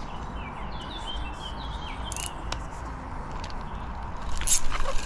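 Small birds chirping in short repeated calls over a steady background rush, followed by a few louder knocks and rustles near the end.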